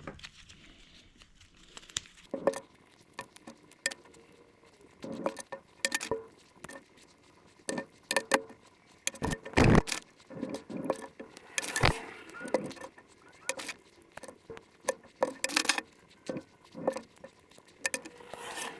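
Metal washer spacers and rubber grommets being handled and pushed into the bolt holes of a V8 intake manifold: irregular light clicks and taps.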